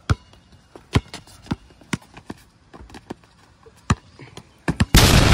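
Basketball being dribbled on a concrete court: sharp separate bounces about a second apart, coming quicker near the end. Near the end a sudden loud burst of rushing noise cuts in over them.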